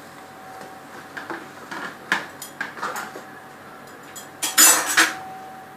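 A cooking utensil knocking and scraping against a pan of hot oil as puris are fried, in an irregular run of clatters, the loudest about four and a half seconds in, over a faint steady hum.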